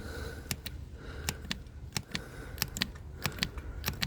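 Hand pump on a gear-oil bottle being worked in repeated strokes, clicking with each stroke about every two-thirds of a second, as oil is pumped up into an outboard motor's gearbox.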